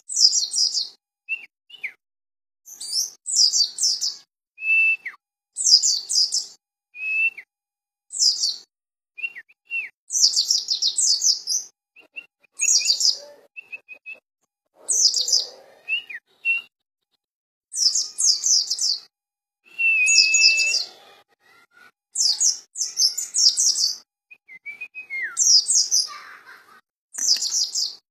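Caged white-eye (pleci dakun) singing: repeated short bursts of high, rapid twittering, with brief whistled notes, some of them falling, in between.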